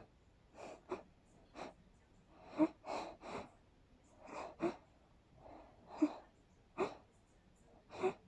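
A person sneezing in a rapid, almost nonstop run: about a dozen short, sharp sneezes, roughly one a second, some in quick pairs.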